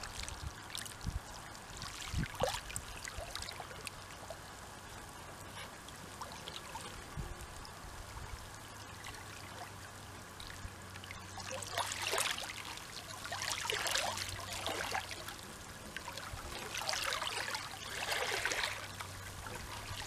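Soft ocean waves lapping and trickling among seaweed-covered shoreline rocks. The small splashes come louder and more often in the second half.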